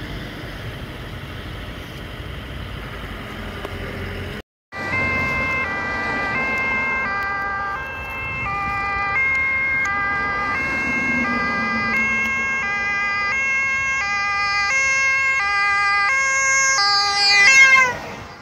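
Road traffic noise, then a Dutch ambulance's two-tone siren alternating between two notes about every half second, growing louder as it approaches. It peaks as the ambulance passes close by near the end, and the pitch slides down as it goes past.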